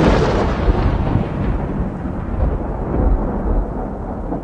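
The long rumbling tail of a loud boom sound effect: a deep, noisy rumble that slowly fades, with a couple of small swells along the way.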